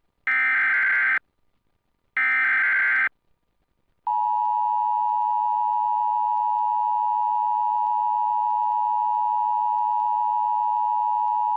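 Emergency Alert System tones relayed by a TFT EAS 911 unit: the last two of the three SAME header data bursts, each about a second of rapid screechy warbling with a short gap between, encoding the coming tornado warning. After a pause of about a second, the steady EAS attention-signal tone starts about four seconds in and holds at an even level.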